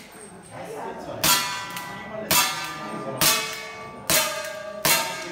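Five shots from a CO2 pistol, about a second apart, each followed by the clang of a steel plate target ringing as it is hit.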